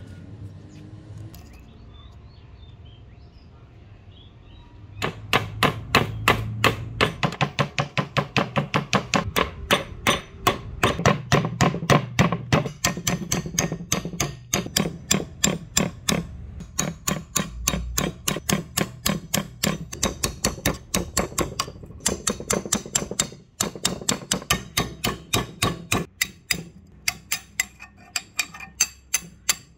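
Rapid hammer blows on a steel drift punch, driving the old wooden handle out of the eye of a Pulaski axe head. The blows begin about five seconds in and come at about three to four a second, in runs broken by short pauses.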